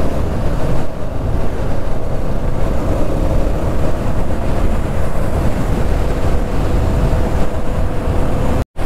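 Yezdi Scrambler motorcycle running steadily under way, its engine note mixed with wind and road rumble. The sound cuts out for an instant near the end.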